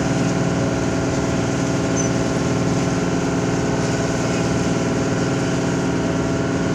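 Boat engine running steadily at a constant pitch, heard from on board, over a steady rushing noise.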